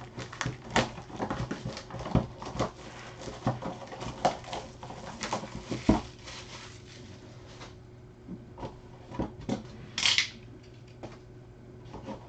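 Small clicks, taps and scrapes of a cardboard trading-card box being carefully cut open and handled, busiest in the first half. A short rustle comes about ten seconds in.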